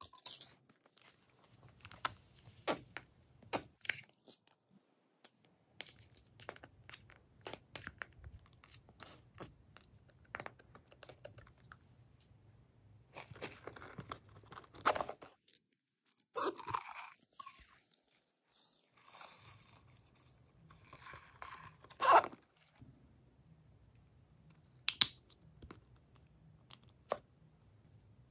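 Slime being squished, pressed and mixed by hand, making irregular sticky clicks and crackles with short quiet pauses. There is a louder snap about three-quarters of the way through.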